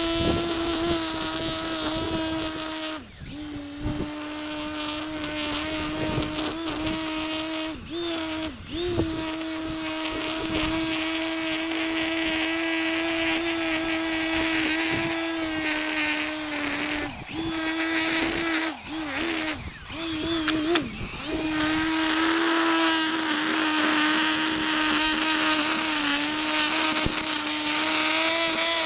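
Whipper snipper (string trimmer) engine running at high speed. Its steady high note dips briefly about half a dozen times as the throttle is let off and opened again.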